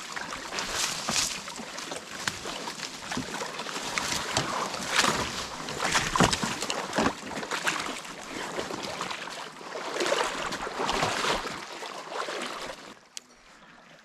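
Kayak being paddled and pushed along a shallow, overgrown creek: irregular splashing, sloshing and scraping noise that falls much quieter near the end.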